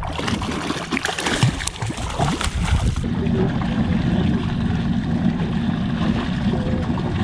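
Water splashing and gurgling beside a small boat, with sharp splashes in the first three seconds. It then changes abruptly to a steady low rumble.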